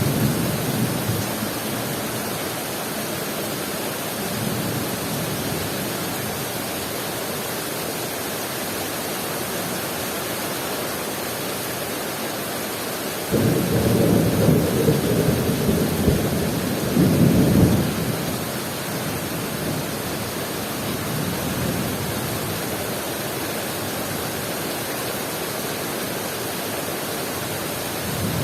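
Heavy rain pouring steadily. About halfway through, a loud rumble of thunder sets in suddenly, lasts about five seconds and surges again before it fades.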